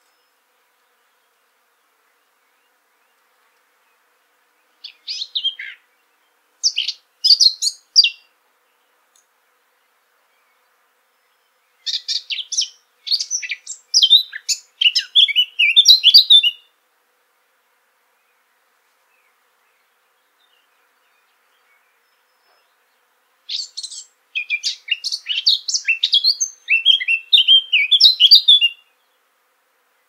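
Eurasian blackcap singing three song phrases of rapid, varied warbling notes, separated by pauses of several seconds. The first phrase is short, and the second and third run about four to five seconds each.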